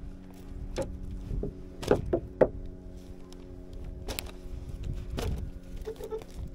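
A boat's engine idling with a steady hum, with several sharp knocks and clicks of gear being handled on deck.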